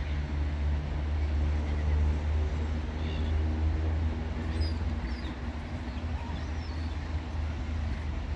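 Steady low hum of a motor vehicle engine amid city traffic noise, easing a little near the end, with a few faint high bird calls in the middle.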